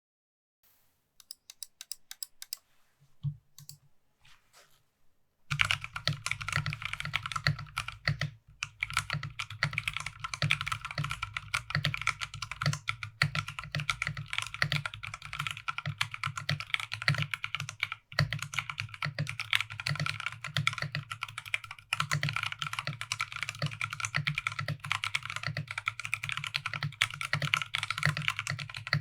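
Typing on a Drop ALT HP mechanical keyboard with stock, unlubed Drop Halo Clear tactile switches in an aluminium plate and PBT keycaps. A few faint scattered keystrokes give way, about five seconds in, to fast continuous typing.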